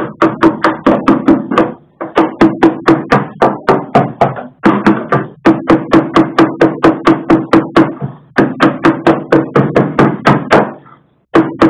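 Rapid hammer blows on the steel bulkhead of a Jaguar E-Type 2+2, about five a second in four runs with brief pauses, the metal ringing under each strike.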